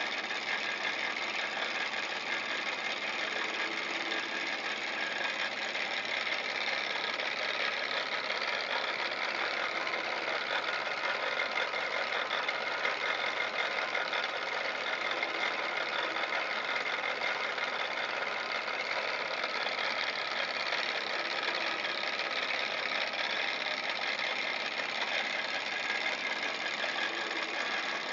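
Hot-air model Stirling engine running steadily, belt-driving a tin-toy carousel: a fast, even mechanical clatter and ticking from the engine's moving parts and the spinning tin ride.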